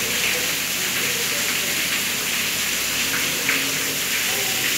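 Steady hiss of rain and water falling through roof leaks onto a wet tiled floor, with a few brief splashes.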